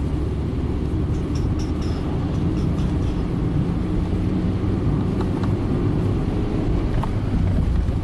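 Steady engine and road rumble inside the cabin of a 2007 Honda Fit with its 1.5-litre four-cylinder pulling uphill under load in a manual gear. The engine is misfiring on cylinder 2 under this load, a fault traced to a failing ignition coil.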